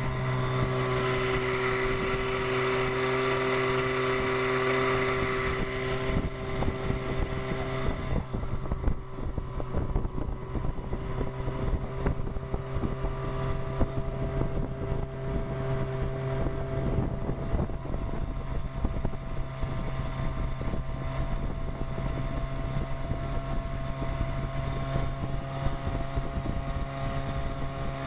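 1957 Johnson Sea Horse 18 hp two-stroke twin outboard running steadily at or near wide-open throttle, pushing a small runabout along, with wind on the microphone.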